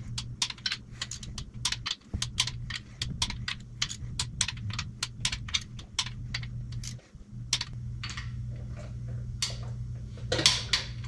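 Craftsman torque wrench ratcheting in quick, irregular clicks, about three or four a second, while main bearing cap bolts are brought up to their final 70 ft-lb on a small-block engine. A few louder clicks come near the end.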